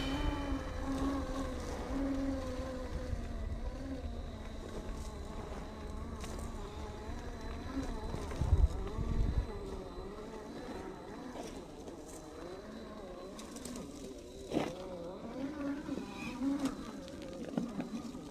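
Electric motor and drivetrain of an RC scale rock crawler whining as it creeps over rocks, the pitch wavering up and down with the throttle. A single sharp knock comes near the end.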